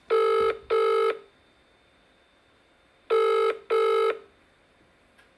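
Telephone ringing with the double-ring cadence: two short rings close together, a pause of about two seconds, then two more. It is the call ringing before it is answered.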